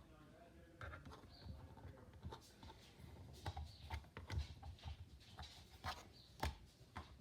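Faint, irregular light clicks and taps, a few of them a little louder, with soft low thumps among them.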